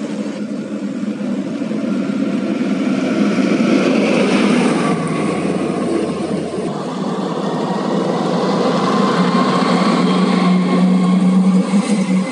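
Heavy diesel dump trucks hauling coal pass along a paved road: a steady engine drone with tyre and road noise. The sound builds around the middle and again near the end, where the engine hum is strongest.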